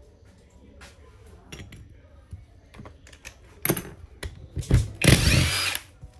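Einhell cordless driver fitted with a socket, run in a few short trigger pulls and then one longer spin of just under a second, its motor whine changing pitch. Before that, light clicks of small metal pump parts being handled on the bench.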